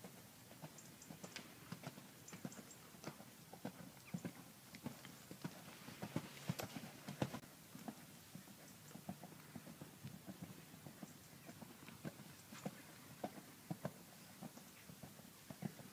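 Hoofbeats of a Connemara gelding on a sand arena: a run of soft, irregular thuds, a few a second, loudest between about six and seven seconds in.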